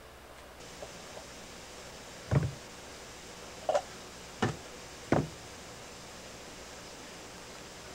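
Four knocks within about three seconds as a stone weight is lifted off a metal lid resting in a plastic tub and set down, and the lid is handled. The first knock is a dull thud, and one later knock rings briefly like metal.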